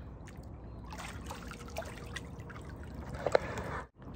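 Swimming-pool water trickling and lapping as a person wades and moves in it, with small drips and splashes and one short louder sound about three seconds in.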